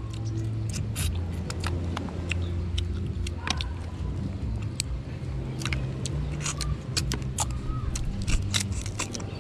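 Land crab shells cracking and clicking as crab is picked apart and eaten by hand, many small sharp clicks scattered throughout, over a steady low engine-like drone.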